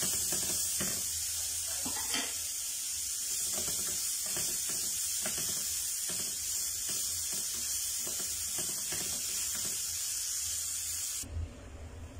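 Fresh tomato frying in a hot pan with garlic, onion and ginger: a steady sizzle with many small clicks and pops. The sizzle cuts off suddenly near the end.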